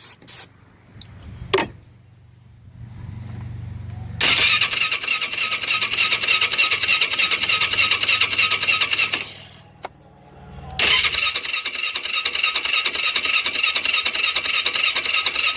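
Polaris Sportsman 500 HO's electric starter cranking its single-cylinder engine in two runs of about five seconds each, with a short pause between. The engine never fires even with starting fluid in the intake, which points to a spark or ignition problem.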